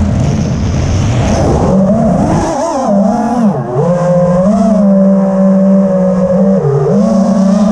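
FPV freestyle quadcopter's brushless motors and propellers on 6S whining, the pitch sliding up and down with throttle. For the first couple of seconds a rush of wind noise on the onboard microphone covers the motors during a flip and dive. The motor tone then steadies, with short dips near the middle and near the end.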